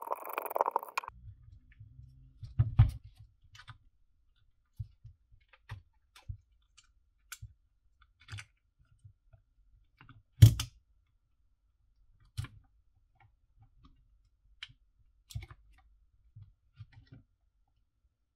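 Scattered clicks, taps and knocks of hand disassembly of a Milwaukee 18V FUEL hammer drill: a screwdriver backing out screws, then the motor, gearbox and wiring being worked loose and lifted out of the plastic clamshell housing. One sharper knock about ten seconds in is the loudest.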